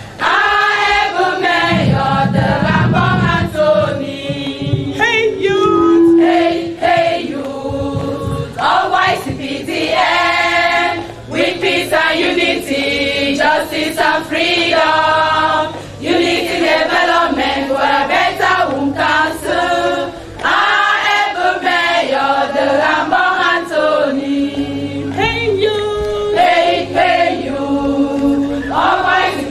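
A women's choir singing together, many voices carrying one song phrase after phrase, with short breaks between lines.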